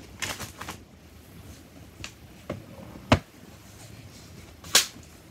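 Handling noise as a framed picture is picked up: a few light taps and knocks, one sharper knock about three seconds in, and a brief scrape near the end.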